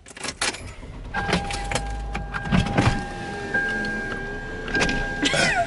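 Car cabin sounds as the driver settles in: sharp clicks and knocks of the seatbelt and car fittings, and a steady electronic warning tone from the car that comes on about a second in and holds.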